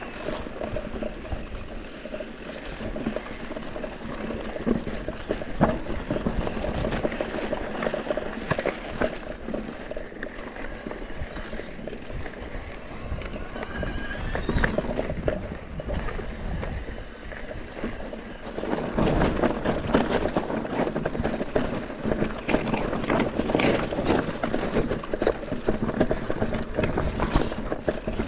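Mountain bike riding down a rocky trail: tyres crunching over gravel and stones, with the bike rattling and knocking over bumps and wind on the microphone. The rattling gets louder and rougher about two-thirds of the way through.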